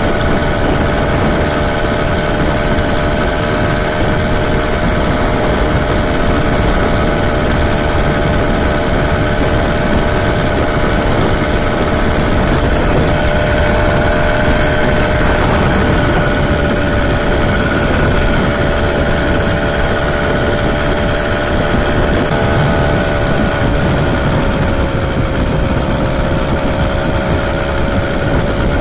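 80cc two-stroke motorized bicycle engine running at a steady cruising speed, its pitch easing down slightly about 23 seconds in, over a steady rush of wind noise.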